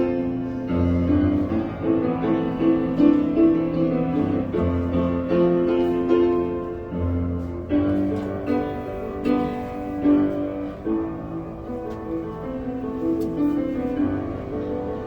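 Keyboard instrument playing a slow melody over held chords, with a low bass note that sounds every few seconds.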